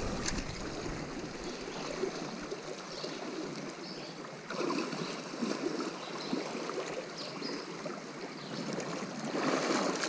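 Shallow creek water running and splashing around legs wading through the current.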